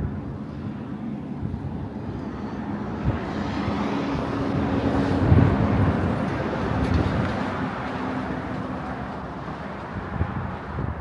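A motor vehicle passing on the nearby road, its engine and tyre noise swelling to its loudest about five seconds in and then fading, over outdoor background noise.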